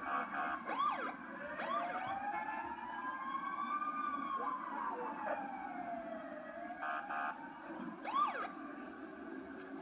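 Fire engine siren heard through a TV speaker: one slow wail rising and then falling over several seconds, with short quick yelps near the start and again near the end.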